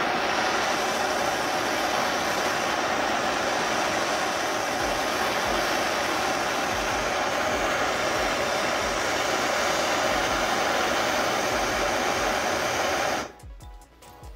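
Bernzomatic MAP gas hand torch burning with a steady hiss, its flame playing on a metal tab clamped in a vise to heat it before bending. The flame cuts off suddenly near the end, leaving a few small clicks.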